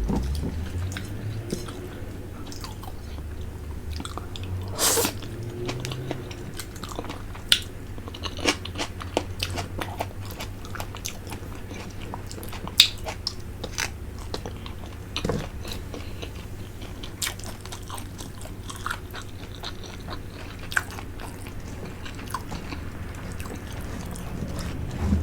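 Close-miked mouth sounds of someone eating a boiled fish head: sucking, slurping and chewing, with many small wet clicks and smacks and a louder, longer slurp about five seconds in, over a low steady hum.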